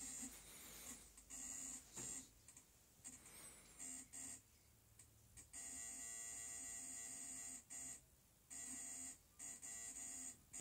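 Electronic buzzer beeping in irregular on-off bursts, mostly short, with one held for about two seconds about halfway through.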